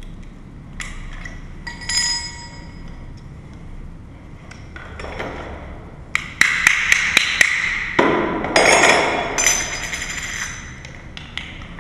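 Metal lock hardware clinking and tapping as it is handled and fitted: a few light clicks with a metallic ring, then a quick run of about six sharp taps, followed by a louder rattle of metal parts.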